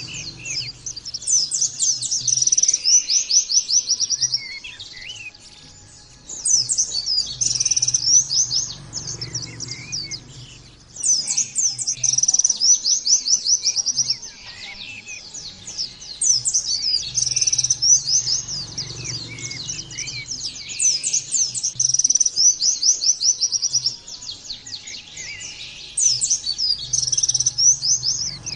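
Pleci (white-eye) singing: long, fast, high-pitched trilled phrases, one after another with short breaks between them.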